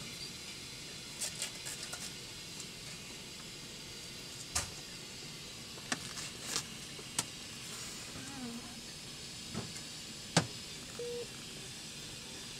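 Quiet room tone with a steady hiss, scattered small clicks and rustles, and a couple of faint short tones near the end.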